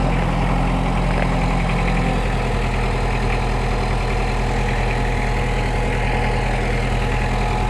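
Compact tractor's engine running steadily at a constant speed while its loader holds the Jeep body up.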